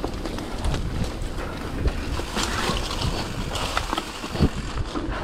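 Hardtail mountain bike rolling downhill on a dirt trail, heard from a handlebar-mounted camera: wind rumble on the microphone, tyres running over dirt and dry leaves, and the bike rattling and clacking over bumps, with a sharper knock about four seconds in.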